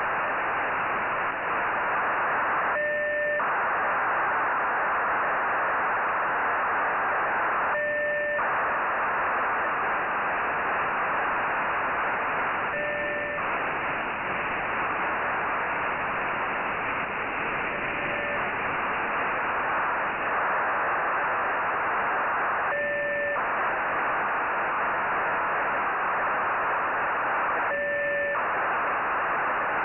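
Software-defined radio's narrowband FM audio: steady radio hiss while receiving the Nayif-1 (EO-88) satellite's 145.94 MHz telemetry downlink. About every five seconds, a short two-tone blip briefly cuts into the hiss.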